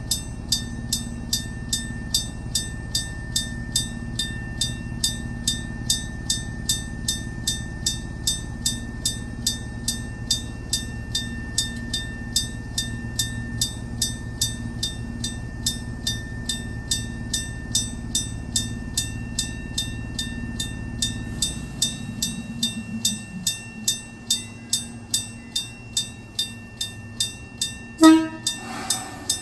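Level-crossing electric bell striking in an even, rapid rhythm of about two and a half strokes a second, sounding the crossing's warning. A train's low rumble lies under it until about two-thirds through, and a short, loud horn toot sounds near the end.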